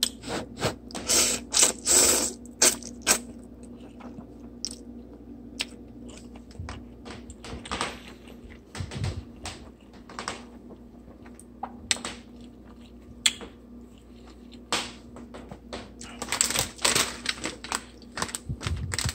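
Handling noises of chopsticks, a plastic food container and a plastic noodle packet: irregular clicks and taps, with bunched clicking and rustling about a second in and again near the end, when the crinkly packet is picked up.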